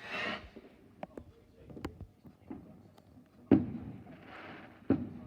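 Fireworks going off outside, heard through a window: a hissing burst at the start, a few faint pops, then three sharp bangs in the second half, each trailing off, with fizzing hiss between them.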